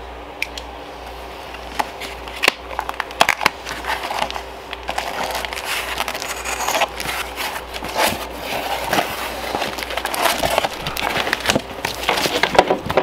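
Packaging being handled and unwrapped: irregular crinkling and crackling with scattered clicks and knocks, busier in the second half, over a steady low hum.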